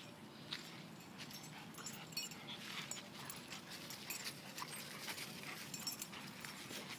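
A dog's faint noises at low level: irregular short soft rasps with a few brief high squeaks.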